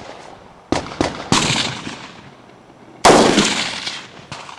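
Rifle shots fired at targets: three quick shots about a second in, then a louder one about three seconds in, each followed by a long echo dying away.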